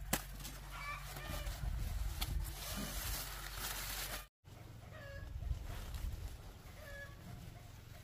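Chickens clucking in short calls repeated every second or two, with a brief dropout about four seconds in. Right at the start, one sharp knock as an ear of corn drops into a woven bamboo basket.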